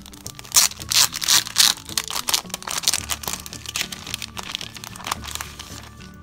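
Clear plastic packaging crinkling and crackling as sticker sheets are handled and pulled out of their cellophane bag, loudest in the first few seconds, over steady background music.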